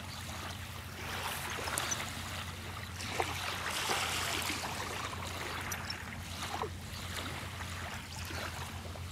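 Water lapping and sloshing over a steady low hum, with a few faint clicks.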